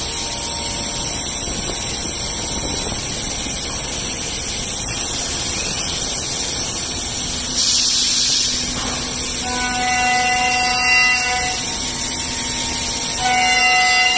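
Pade Velox T2 five-axis CNC router machining wood, a steady cutting noise. There is a brief hiss about 8 s in, and a whine made of several steady tones comes in about 9.5 s in and again near the end.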